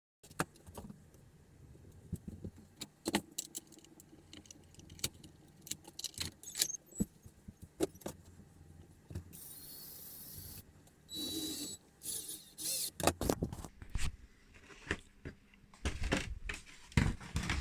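Small hard parts of a model excavator's quick coupler clicking and knocking as they are handled and fitted, with a small electric motor whirring briefly twice near the middle.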